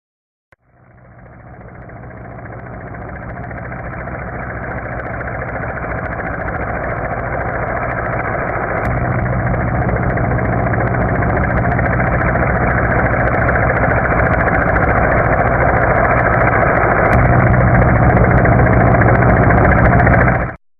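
Helicopter approaching: the pulsing rotor and engine noise grows steadily louder for about twenty seconds, then cuts off abruptly.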